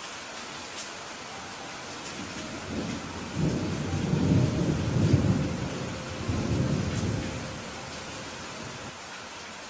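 Steady rainfall with a rolling rumble of thunder that swells about three seconds in, peaks, rolls again, and dies away before the end.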